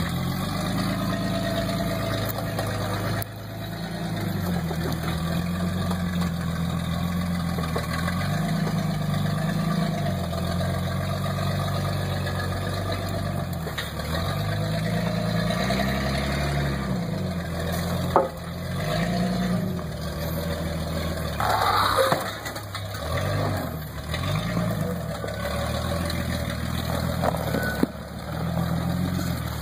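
Lifted Jeep Cherokee XJ's engine working at low speed, its revs rising and falling again and again as it crawls over a pile of concrete culvert pipes. A few sharp knocks come from the tires and chassis on the pipes.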